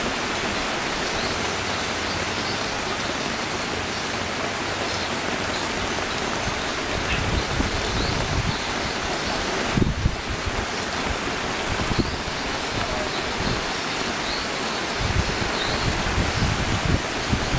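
Heavy tropical rain together with the rushing and churning of tidal-bore waves on a river, making a dense, even hiss. Uneven low rumbles come and go in the second half.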